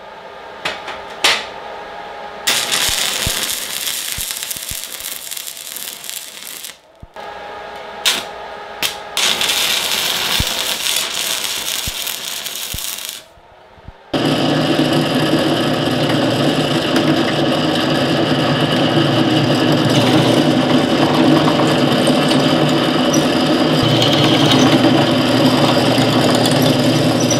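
Stick (arc) welding on steel: sharp crackling arc strikes, then two stretches of steady arc crackle and hiss, each about four seconds long. About halfway through, a Craftsman benchtop drill press takes over, its motor running with an even, steady hum while it drills into steel plate.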